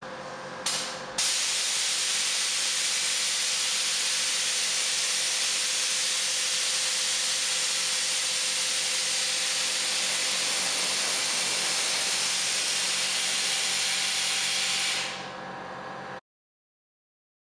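Kelderman air-ride suspension on a Ford F350 letting air out of its airbags to lower the truck. A steady, loud hiss starts about a second in and tails off near the end as the truck settles.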